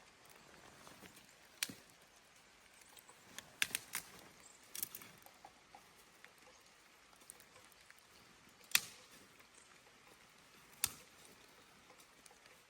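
A few sharp snaps and knocks at irregular intervals over a faint steady hiss: one about 2 s in, a quick cluster around 4 to 5 s, and single louder ones near 9 and 11 s.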